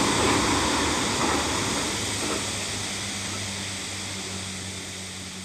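Running noise of a passing JR Kyushu 787 series limited express train fading steadily as it moves away, leaving a low steady hum.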